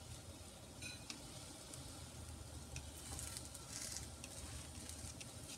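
A large meat-and-vegetable pancake frying in oil in a pan, sizzling faintly and steadily, with a few light scrapes and taps as a wooden spatula presses and lifts it.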